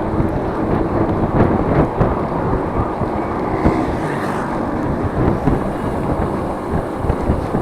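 Strong wind buffeting the microphone while riding, a loud, uneven low rumble that rises and falls with the gusts.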